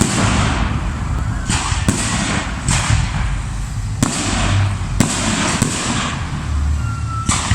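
Aerial fireworks salute bursting overhead: a string of sharp bangs about a second apart, each trailing off in a fading hiss.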